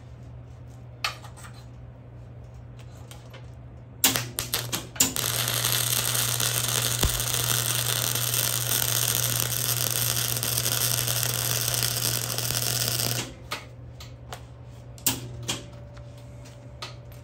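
Flux-core wire-feed welder arc: a few sharp pops as the arc strikes about four seconds in, then a steady crackling weld for about eight seconds that cuts off sharply. A steady low hum runs underneath.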